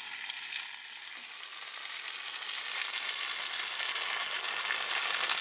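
Torn ham and cheese frying in a pan, a steady sizzle full of fine crackles that grows gradually louder after about a second, with bits of it starting to stick to the pan.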